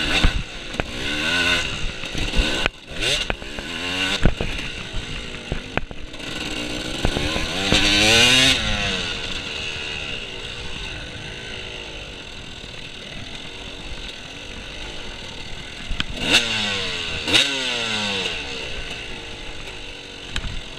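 Off-road dirt bike engine being ridden hard, revving up and falling back again and again, with a long rising rev about eight seconds in and two more sweeps near the end. Scattered sharp knocks and clatter.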